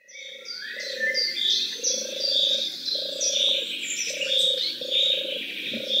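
Birds singing in a wild recording: many high chirps and trills over a low hooting note repeated about once a second.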